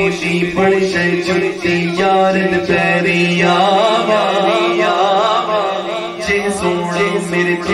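Male voices singing a naat unaccompanied through microphones and loudspeakers. A lead voice sings a wavering, ornamented melody over a steady low held drone.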